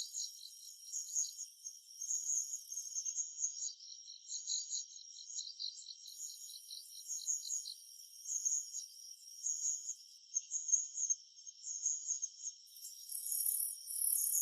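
Summer-forest insect chorus: several insects chirping in quick, steady pulses, with a higher, hissing buzz that drops out and comes back twice.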